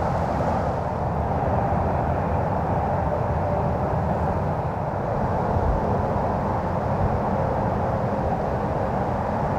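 Steady low rumbling background noise outdoors, even throughout, with no distinct sounds standing out.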